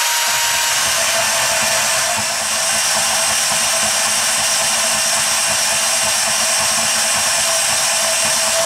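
Milwaukee M12 brushed cordless portable bandsaw running at full throttle, its blade cutting through a 3/4-inch square aluminum bar: a steady motor tone over a dense hiss of blade on metal.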